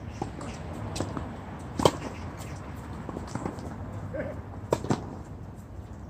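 Tennis ball struck by rackets and bouncing on a hard court during a doubles rally: a few sharp pops, the loudest about two seconds in and two close together near five seconds.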